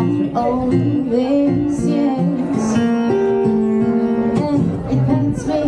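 Acoustic guitar playing the song's accompaniment, picked and strummed chords in a steady rhythm, with a few notes held for a moment in the middle.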